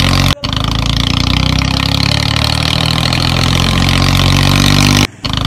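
Tractor engine running steadily at idle, a sound effect laid over the toy tractor, dropping out briefly twice: about a third of a second in and near the end.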